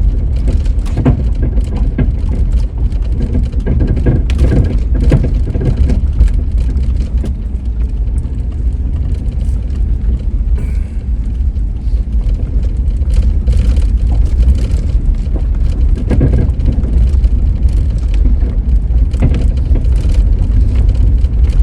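Inside the cab of an old four-wheel-drive truck crawling along a rough dirt road: a steady low rumble of engine and tyres, with frequent knocks and rattles as it jolts over the rough spots.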